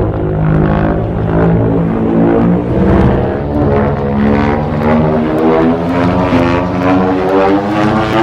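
Godzilla roar sound effect from the 2019 film: one long, loud roar built of many stacked tones, its pitch slowly rising.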